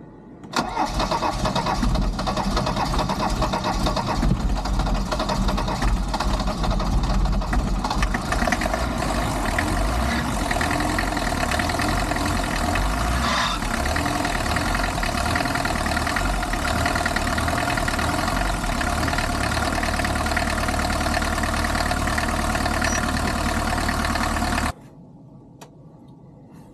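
Mercedes 207D's OM616 four-cylinder diesel engine starting and running, uneven for the first several seconds and then steadier, before cutting off suddenly near the end. It runs with two of its four glow plugs dead.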